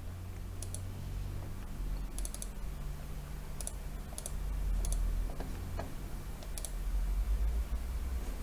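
Computer mouse clicks, single and in quick pairs, scattered about a second apart over a low steady hum.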